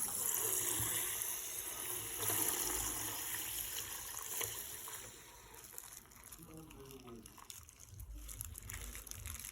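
Water pouring and trickling out of a burst plastic bag, strongest over the first few seconds and then tapering off.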